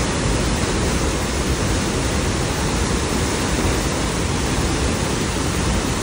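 Tall waterfall plunging into its pool, heard from close to its base: a loud, steady rush of falling water and spray.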